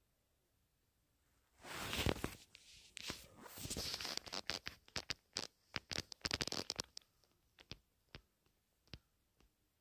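Hands coating a cod fillet in flour: rustling, scraping and patting from about two seconds in, then a few light taps near the end.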